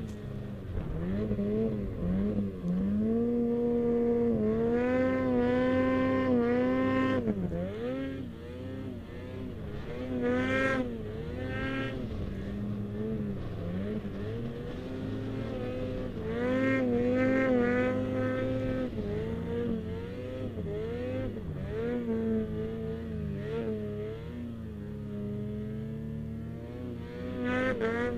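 Ski-Doo 2012 Freeride snowmobile's 800 E-TEC two-stroke engine revving up and down over and over as the throttle is worked through deep powder, its pitch climbing and dropping in quick swells.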